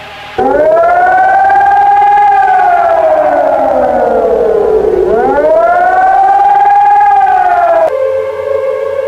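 Civil defense siren wailing. It winds up quickly, falls slowly to a low point about five seconds in, then winds up again and holds. Near the end it breaks off into a steady, unwavering tone made of several pitches.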